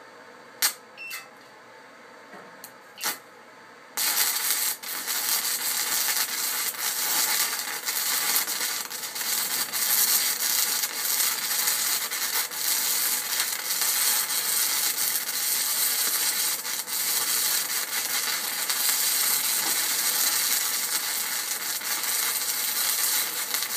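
Stick welding on quarter-inch steel plate with a small Harbor Freight arc welder. A few sharp clicks in the first seconds, then from about four seconds in the arc runs with a steady crackling sizzle as a bead is laid.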